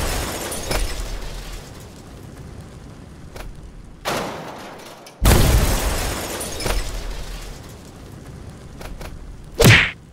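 Sound-effect booms and impacts for a toy battle: several sudden loud hits, each dying away over a second or two, with a short sharp one near the end.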